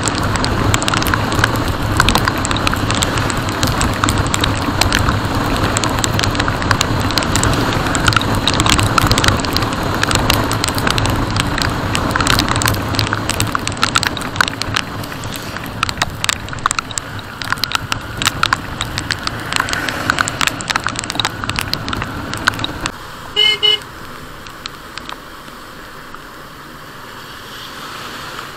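Motorcycle riding noise in the rain: the engine, wind rush and crackling rain hits on the mounted action camera, which drop away suddenly near the end. A short horn beep follows just after.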